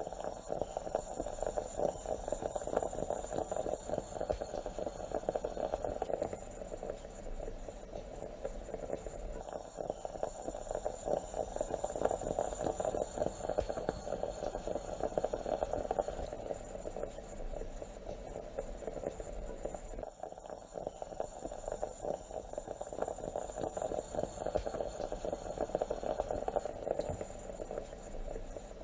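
Stovetop moka pot gurgling and sputtering steadily as the coffee bubbles up into the upper chamber, a dense crackling bubbling that repeats as a loop about every ten seconds.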